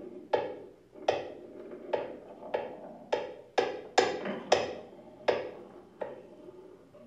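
A flat metal blade struck on a wooden board by hand, played as percussion: about nine sharp taps at an uneven pace, each ringing briefly with a pitched tone. The taps come closer together around four seconds in and stop after about five and a half seconds.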